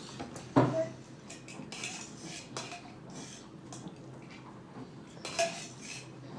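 Tableware clinking and knocking: two sharp strikes, about half a second in and again near the end, each with a short ringing tone, with lighter taps and clicks between.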